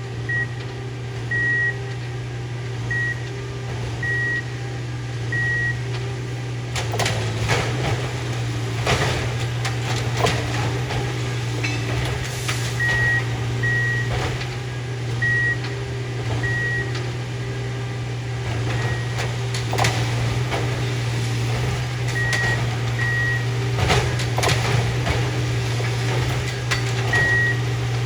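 Railroad tie remover machine with its engine running steadily, sounding short high warning beeps at irregular intervals. Clanks and scraping come as its hydraulic arm grips and drags out old cross ties, loudest a few times in the middle and near the end.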